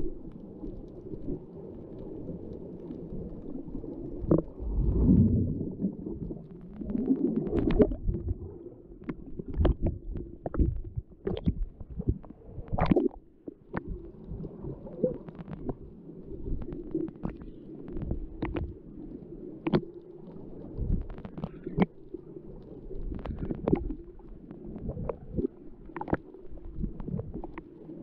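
Muffled underwater water noise picked up through a waterproof camera housing: a low rumbling wash of moving water with irregular sharp clicks and knocks, one or two a second. The rumbling swells louder a few times in the first third.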